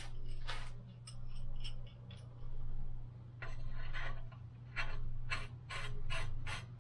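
Ratchet wrench clicking in repeated strokes, about one bunch of clicks a second, while working on a bicycle crank, over a steady low hum.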